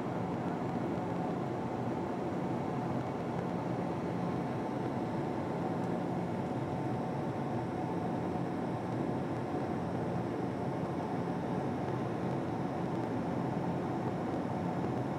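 Inside the cabin of a Boeing 767-400 climbing out after take-off: the steady rush of its GE CF6 turbofan engines at climb thrust and the airflow over the fuselage, with a few steady hums.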